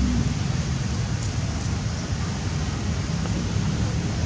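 Steady rushing wind noise on the microphone.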